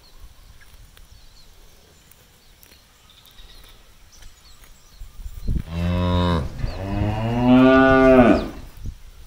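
A cow mooing, about five and a half seconds in: a short call, then a longer one that rises and falls in pitch, the loudest part near its end.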